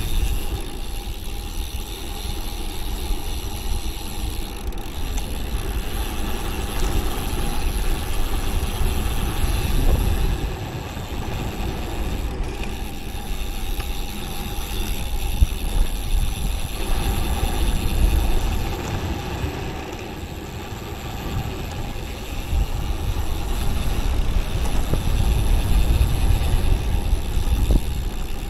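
Road bike descending at speed: wind rushes over the microphone with a deep buffeting rumble, over the hiss of the tyres on the tarmac. The noise eases briefly a couple of times.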